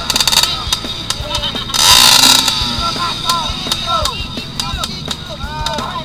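Dirt bike engine revved hard for about half a second around two seconds in, then dropping back, as the rider tries to drive the bike out of a deep muddy rut.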